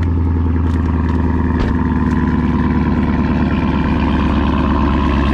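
Car engine running with a steady, even drone, loud and close.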